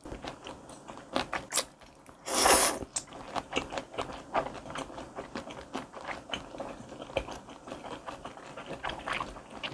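Close-miked eating sounds: a loud slurp of noodles in broth about two and a half seconds in, then wet chewing with many small mouth clicks.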